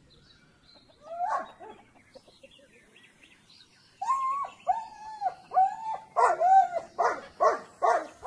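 An animal calling: one call about a second in, then from about four seconds a run of repeated calls that come faster and louder, about two a second toward the end.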